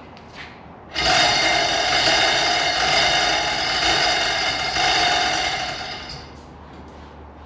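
A small motor running with a steady whir and whine, starting suddenly about a second in and fading out about five seconds later.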